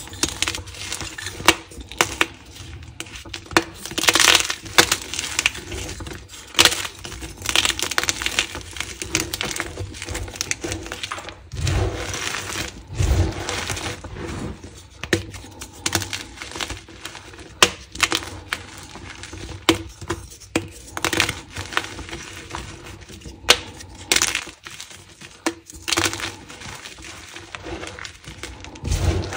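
Hands crushing gym chalk: a dyed chalk block snapping apart, then fingers raking and squeezing a pile of chalk chunks and powder. Irregular crisp crunches and snaps throughout, several sharper cracks standing out.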